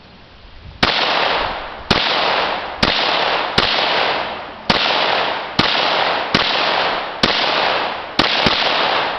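Semi-automatic PPS-43 pistol in 7.62×25mm Tokarev firing about ten single shots, roughly one a second with the last two close together, each shot trailing off over most of a second.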